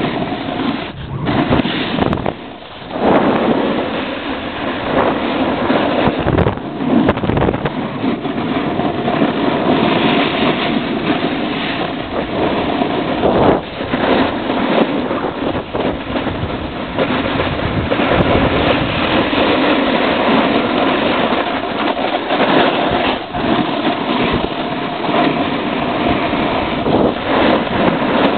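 Snowboard sliding and carving down a ski run: a continuous loud scraping of the board on snow mixed with wind rushing over the microphone, rising and falling through the turns, with a brief lull about two and a half seconds in. The snow is noisy after a spell of warm weather.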